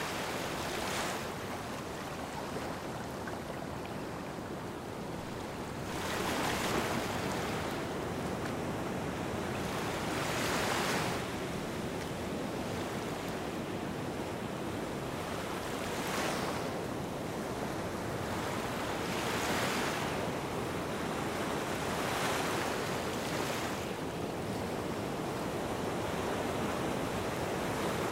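Small waves washing onto a sandy shore: a steady hiss of surf that swells and fades every three to five seconds as each wave runs up the beach.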